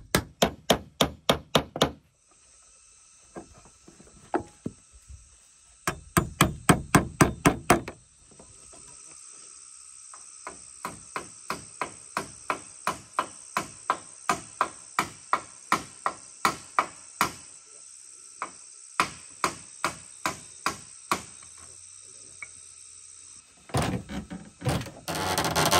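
A hammer drives nails into the wooden slats of a cabin door in runs of quick, even blows, about four a second at first and slower later. Insects buzz steadily in the background. Near the end the slatted wooden door rattles as it is pushed.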